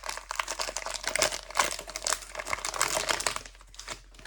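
Plastic wrapper of a trading-card pack crinkling as it is handled, a dense run of irregular crackles that thins out near the end.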